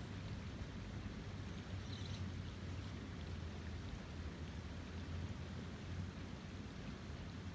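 River running high in the rainy season: a steady rush of water with a deep low rumble underneath.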